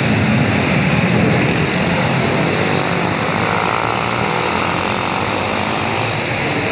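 A field of dirt-track racing karts with Briggs & Stratton Animal four-stroke engines running hard together, a steady, dense engine drone.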